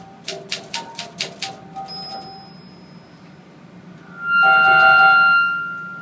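Homemade typewriter organ being played: about six typewriter key strikes clack in the first second and a half, each with a short organ note. About four seconds in, a loud held organ tone sounds and fades away near the end.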